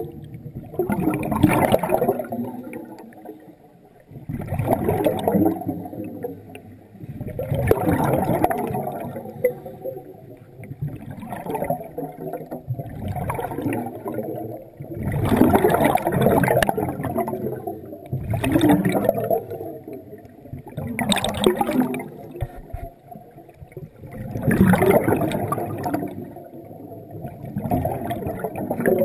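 Scuba breathing heard underwater through a regulator: loud bursts of exhaled bubbles gurgling past the camera about every three to four seconds, with quieter inhalations between them.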